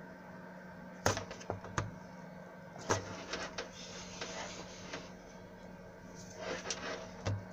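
Ig-Max 1607 500W PC power supply running with a steady low hum and a faint high tone. Irregular clicks and knocks sound over it: sharp ones about a second in, near two seconds and near three seconds, then clusters of lighter clicks and rattles in the middle and near the end.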